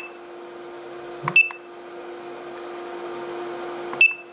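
Turnigy Reaktor 300W balance charger beeping as its menu buttons are pressed: three short high beeps, one at the start, one about a second in and one near the end, over a steady low hum.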